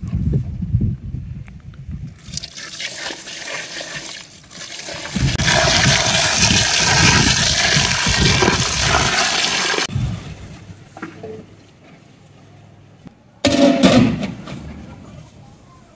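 Water rushing out in a steady pour that builds over a few seconds, runs loudest for about four seconds, then fades out. A short loud sound follows near the end.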